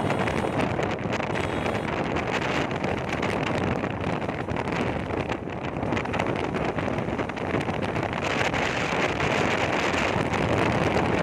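Wind buffeting the microphone while riding, with vehicle and road noise steady underneath.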